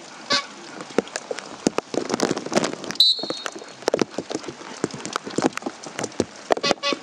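Irregular patter of raindrops, many sharp ticks, with a brief high steady tone about three seconds in.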